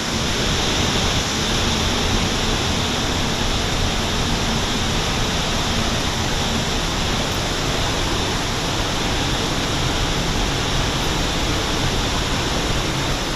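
Steady rushing roar of Fukiwari Falls, an unbroken wash of falling water with no change in level.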